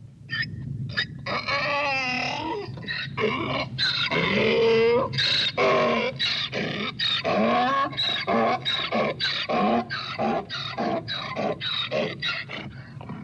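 Donkey braying: a few long drawn-out calls, then a run of quick repeated hee-haw cycles, about two a second, that fade slightly toward the end.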